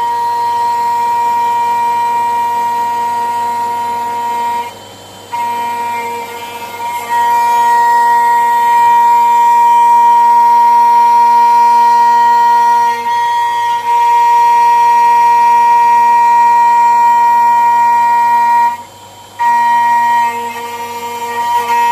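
CNC router spindle whining steadily as it mills an aluminium block, its pitch held level; the whine drops away briefly twice as the cutter comes off the work.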